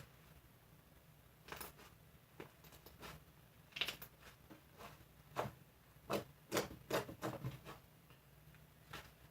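Irregular light taps and clicks of objects being handled, clustering into a quick run of louder knocks about four to seven seconds in, over a faint low hum.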